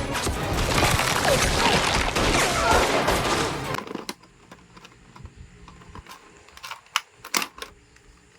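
Loud, dense clattering action sound effects, like rapid gunfire and crashing, that cut off suddenly about four seconds in. After that it is quiet apart from a few sharp clicks and taps, typical of plastic toy packaging being handled.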